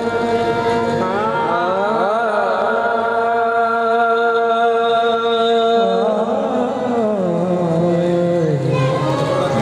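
Qawwali music: harmonium chords held steady, with a singer's voice sliding up and down in long drawn-out phrases over them.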